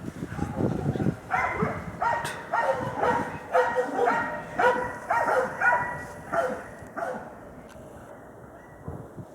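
Hunting dog barking at a wild boar at bay: a steady run of about a dozen barks, roughly two a second, starting about a second in and stopping about seven seconds in.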